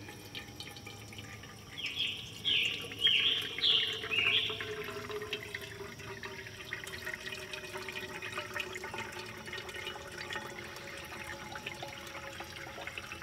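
Rainwater dripping and trickling through a soaked cotton bandana into a metal cup. About two seconds in, a quick run of about five high, falling chirps, likely a bird, is the loudest sound.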